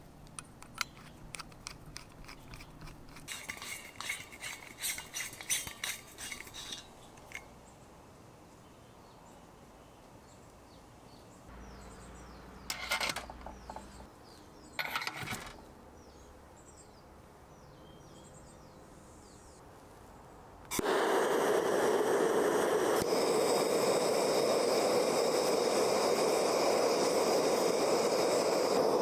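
Metal clinks and scrapes as a brass hose fitting is handled and threaded onto a Bernzomatic MAPP gas torch, then two short bursts of noise a little before halfway. About two-thirds of the way in, the forge's Bernzomatic MAPP gas torches light and burn with a steady, loud rush.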